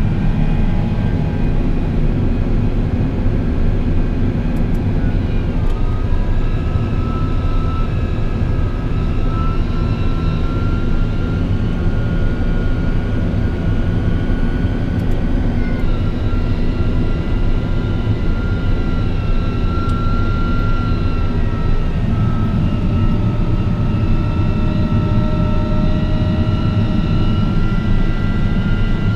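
CAT Challenger MT865E tracked tractor running steadily under load while pulling a Vaderstad Carrier 1225 disc cultivator, heard from inside the cab: a dense low engine drone with a steady high whine over it.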